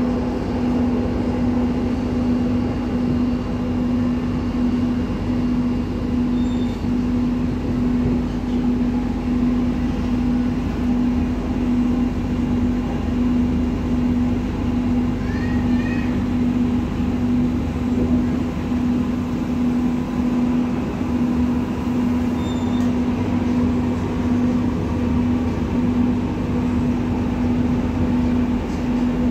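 Palembang LRT electric light-rail train heard from inside the car while running along the elevated track. It makes a steady low rumble with a constant hum.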